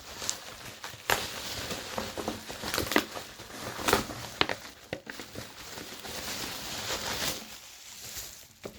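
Wrapping paper being torn open and crumpled by hand: continuous rustling with many sharp crackles, dying away near the end.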